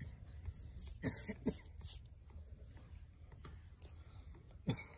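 Straight razor scraping through lathered beard stubble in short strokes: a run of several in the first two seconds and one sharper stroke near the end.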